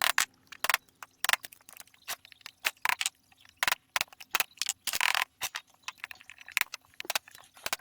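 A razor blade scraping soaked old wallpaper off the wood of the trunk: irregular sharp clicks and short scraping strokes, with two longer scrapes about three and five seconds in.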